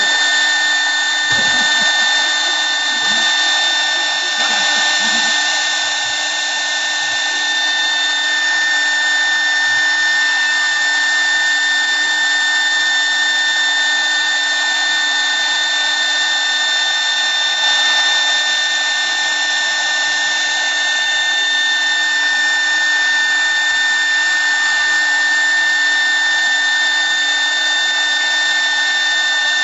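CNC wood lathe running steadily: a constant high whine made of several steady tones over an even rushing hiss, with no change in speed.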